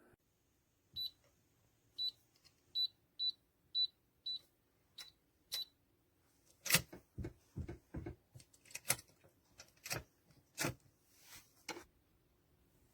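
Keypad of an RPNB digital safe beeping as its buttons are pressed: about eight short high beeps, one per keypress. These are followed by a run of sharp clicks and knocks from the safe's lock and handle mechanism.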